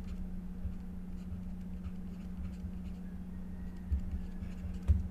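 Stylus tapping and sliding on a tablet screen as words are handwritten, over a steady low hum. A sharper knock sounds near the end.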